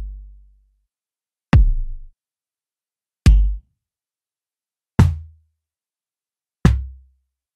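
Synthesized kick drums from Native Instruments Maschine's Drumsynth Kick, struck one at a time about every 1.7 s, four hits in all, each from a different kick engine (Tronic, Grit, Rasper) and so each a little different in tone. Every hit is a sharp click-topped thump with a short low tail.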